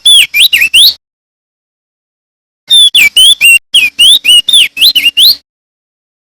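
Male crested white-eye (opior jambul) singing loudly: a phrase of rapid whistled notes ends about a second in, then after a short silence a longer phrase of about a dozen quick notes sliding up and down in pitch.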